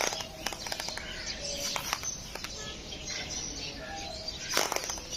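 Birds chirping in short calls, with scattered sharp clicks and a flurry of clicks about four and a half seconds in.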